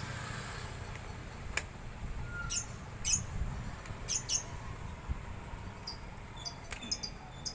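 Cutter knife blade forced through thick, wet tyre rubber, squeaking in short high strokes several times as it is pushed along the cut.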